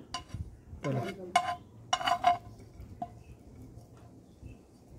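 Metal slotted spatula scraping and clinking against a frying pan as sautéed vegetables are pushed out onto a plate. A handful of sharp metallic clinks come in the first two and a half seconds, then it is quieter.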